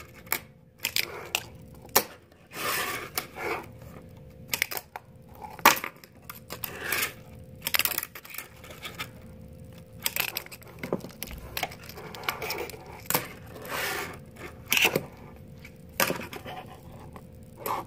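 Tech Deck fingerboard and a stiff paper display card handled on a hard counter: irregular sharp clicks and taps mixed with short scrapes and rustles.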